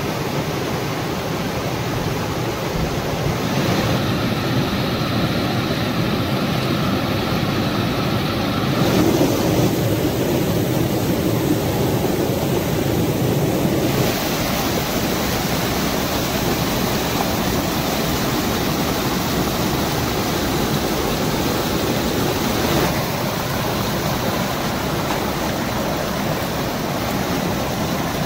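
Rain-swollen waterfall: muddy floodwater rushing over rock ledges and churning into white water, a loud, steady rush of water. Its tone shifts abruptly several times.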